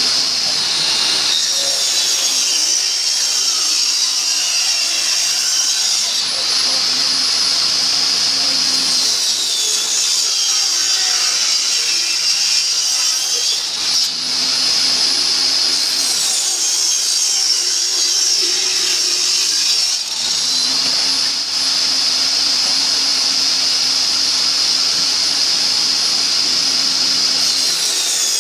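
Table saw running, cutting through the pine sides of a wooden beehive box in several passes. Its high whine sags in pitch each time the blade bites into the wood, and a lower rumble comes in during each cut.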